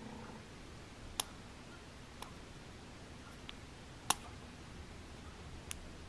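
A few sharp, faint ticks, about five at uneven spacing and the loudest about four seconds in, as a strip of paper is drawn along a broadhead blade's edge and catches and pops off the burr. The catching shows that a burr has formed along the edge after the 1200-grit plate.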